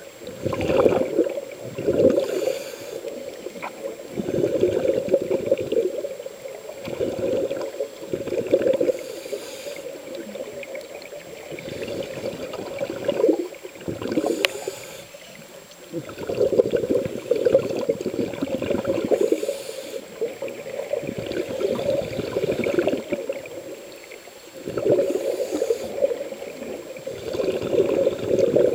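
Scuba regulator breathing underwater: exhaled air bubbling out of the regulator in gurgling bursts of a second or two, repeating every few seconds with quieter gaps between.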